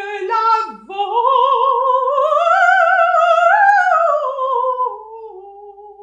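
A woman singing unaccompanied: two short rising swoops, then one long note with vibrato that climbs slowly to a high peak about three and a half seconds in and glides back down, fading near the end, in an operatic style.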